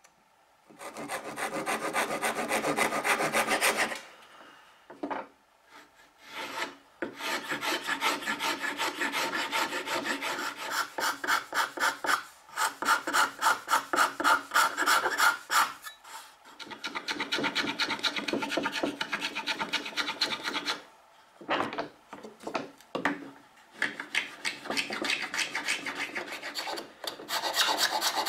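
Small beech plane wedge being shaped by hand with fast back-and-forth abrasive strokes, wood rubbing against a rasp or abrasive. It comes in several runs of quick strokes separated by short pauses.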